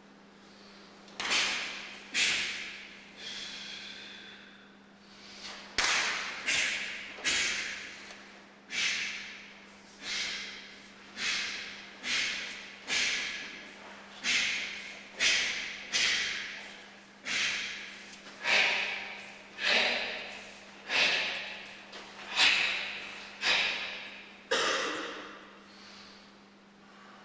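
Karate kata: about twenty sharp snaps, one with each strike or block, each ringing briefly in the hall, with a short pause a few seconds in. A faint steady hum runs underneath.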